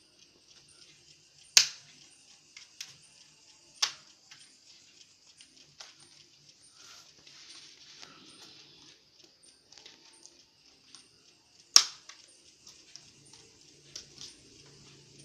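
Sharp clicks and taps of tools and plastic laptop parts being handled during disassembly, three loud ones (about a second and a half in, near four seconds, and near twelve seconds) among fainter ticks, over a steady hiss.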